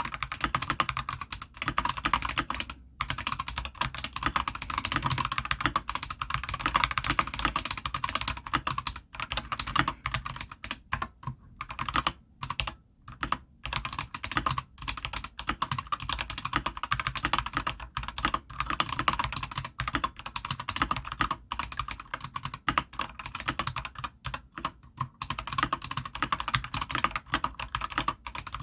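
Fast, continuous typing on an Akko 5108S full-size mechanical keyboard with Akko Lavender switches: a dense clatter of key clicks with brief pauses about 3, 9 and 13 seconds in.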